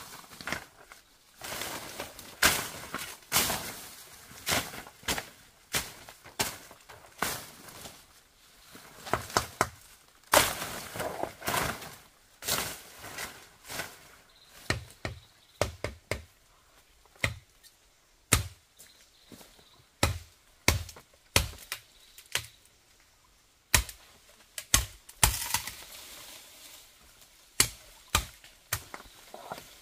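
Irregular series of sharp chopping strikes, roughly one a second, with a short pause about two-thirds of the way in.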